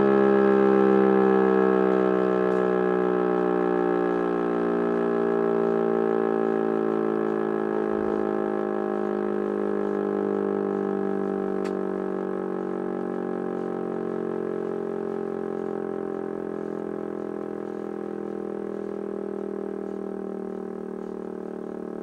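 E57 electric high-mast rotor siren winding down: its steady tone slowly falls in pitch and fades as the rotor coasts after switch-off.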